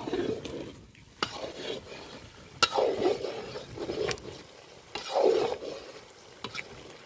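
A spatula stirring and scraping spiced onion masala frying in oil in a pan, in sweeps a second or two apart, with sharp taps of the spatula against the pan.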